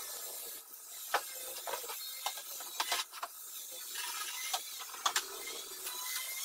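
Powder-coated iron tube sections of a climbing-rose arch frame being slotted together, giving scattered light clicks and taps at irregular intervals, with some paper rustling as the tubes are unwrapped.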